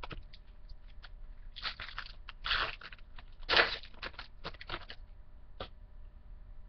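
A trading-card pack's wrapper being torn open and crinkled by hand: a run of short crackly rustles, loudest about three and a half seconds in, with a few light clicks around them.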